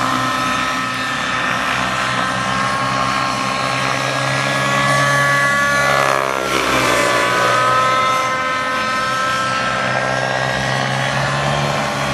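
Raptor 90 nitro RC helicopter's two-stroke glow engine and rotor running in aerobatic flight, a steady whine whose pitch sweeps down sharply about halfway through and climbs back a second later.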